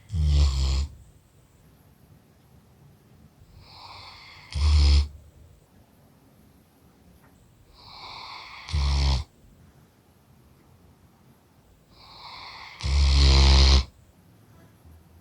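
German shepherd dog snoring loudly in deep sleep: four snores about four seconds apart, each a softer breath building into a loud rasping burst.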